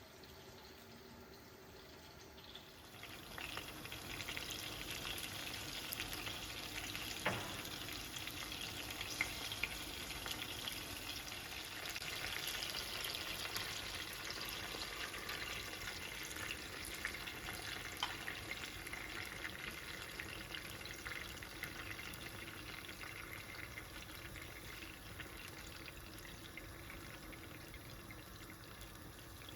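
Food sizzling in a frying pan for an omelette, a crackling hiss that starts about three seconds in, with a few sharp clicks on top.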